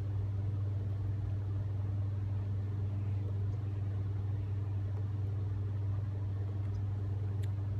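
Steady low electrical hum of rooftop HVAC equipment running, with a faint click near the end.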